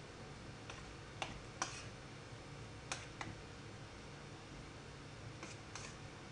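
Light, scattered clicks and taps, about seven of them at uneven intervals, as hands work battered chicken pieces in a ceramic mixing bowl, over a low steady room hum.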